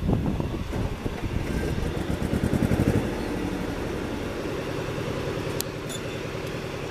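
Boeing 737-800 jet noise: a steady low rumble with a rapid flutter, louder for the first few seconds and then evening out.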